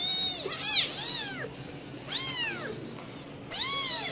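Small kittens meowing repeatedly: about five high-pitched meows, each rising and then falling in pitch, with two overlapping about half a second in.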